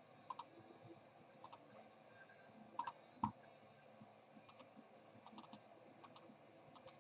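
Faint, scattered computer keyboard and mouse clicks in small clusters, with one louder dull knock about three seconds in.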